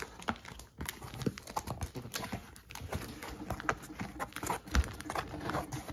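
Cardboard box being opened by hand: flaps folding and scraping and foam packing being handled, a run of irregular small knocks and rustles with one louder thump near the end.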